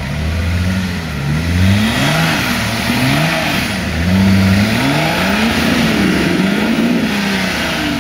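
Nissan Patrol 4x4 engine being revved up and down again and again as the vehicle crawls through a deep mud rut, its pitch rising and falling several times.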